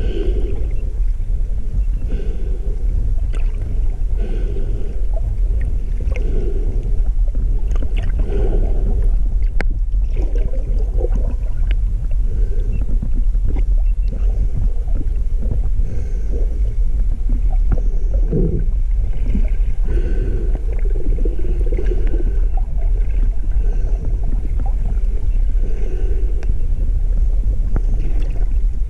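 Pilot whales calling: scattered clicks and faint short whistles over a steady low rumble of water and boat noise.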